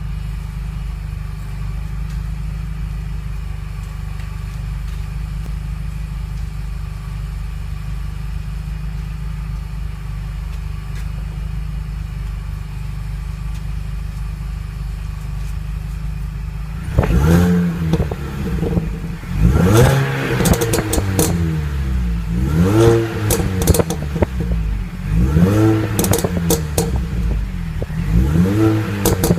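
Mini Cooper S R53's supercharged 1.6-litre four-cylinder idling steadily on its stock exhaust, then revved several times from about 17 seconds in, each rev rising and falling, with crackles and pops from the exhaust as the revs drop.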